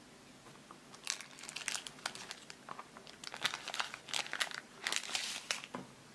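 Thin clear plastic wrapper around a cheese slice crinkling as fingers handle it: an irregular run of sharp crackles starting about a second in and stopping shortly before the end.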